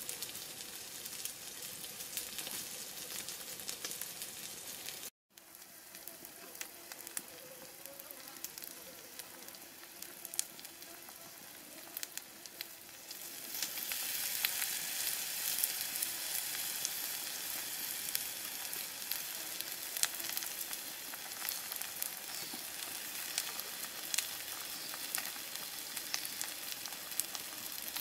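Fish sizzling on a hot slab over a wood fire: a steady frying hiss with small crackles. It cuts out for an instant about five seconds in and grows louder about halfway through.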